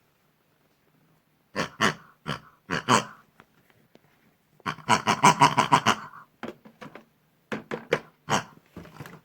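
Pigs grunting. A few short grunts come first, then a quick run of grunts about five seconds in, then more short grunts near the end.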